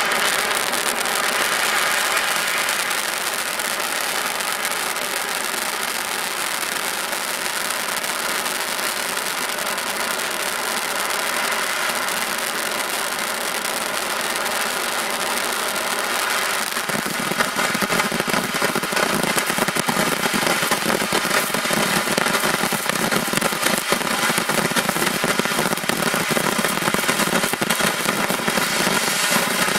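Buzz Saw consumer firework fountain spraying sparks with a steady hiss. About halfway through, dense crackling joins in and the sound grows fuller, with many rapid small pops.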